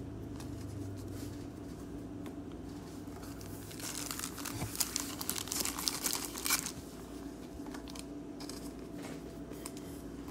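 Crinkling of a thin clear plastic pack of trading-card sleeves being handled and opened, most intense from about four to seven seconds in, with a few more crackles after. A faint steady hum sits beneath.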